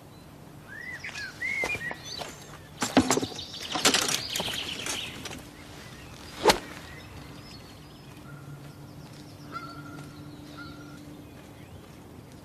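Outdoor birdsong with short chirps, a burst of rustling noise a few seconds in, and a single sharp crack about six and a half seconds in, followed by faint bird calls over a low steady hum.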